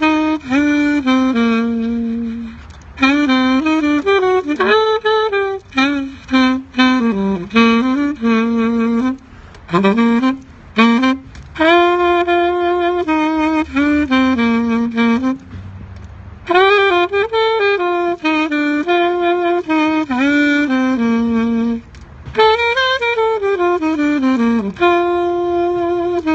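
Solo saxophone playing a slow gospel hymn melody in phrases, with short breaks between them and slides into and between notes.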